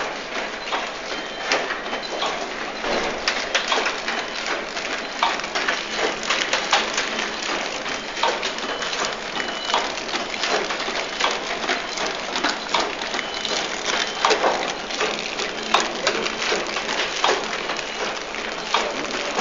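Packaging-line machinery running: a dense, irregular clatter of sharp clicks over a steady hiss.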